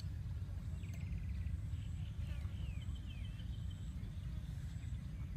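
Birds calling over a steady low rumble: a short buzzy trill about a second in, then several quick falling chirps and a fast trill around the middle.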